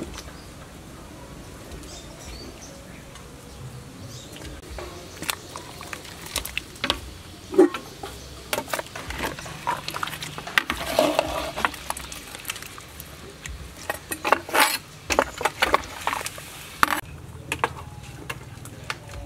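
Metal ladle knocking and scraping against a metal stockpot as pieces of cow leg are stirred in boiling water, in irregular clanks and clicks, loudest about 7 s and 15 s in.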